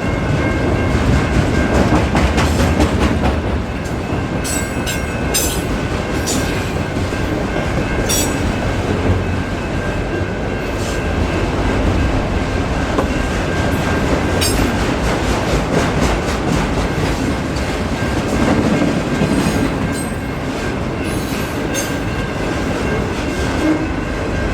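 Freight train cars rolling past on the rails: a continuous loud rumble of wheels on track, with scattered sharp clicks over the rail joints and a faint, steady high-pitched wheel squeal.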